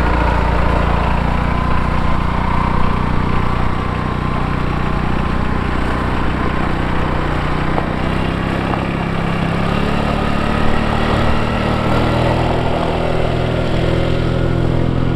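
Kubota RTV500 utility vehicle's engine running steadily as it drives off, its pitch shifting up a little about twelve seconds in.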